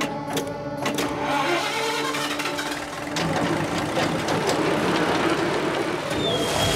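Gold-mining wash plant starting up and running: engine and conveyor machinery with a dense, noisy clatter that swells about a second in and then runs steadily. The plant is back running on its newly fitted drive belts.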